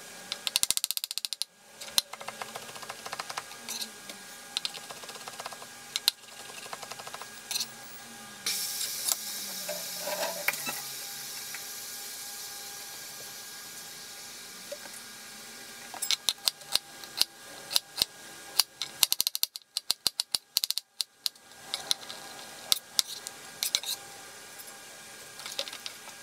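Kitchen knife chopping on a plastic cutting board, slicing shiitake mushrooms at first: quick runs of sharp knife strikes, one just after the start and a longer one in the second half, with scattered single knocks between. A few seconds of hiss come partway through.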